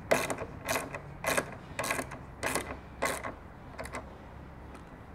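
Hand socket ratchet clicking in short swings, about six strokes just over half a second apart, as a bolt on a motorcycle exhaust mounting bracket is tightened, with a couple of lighter clicks near the end.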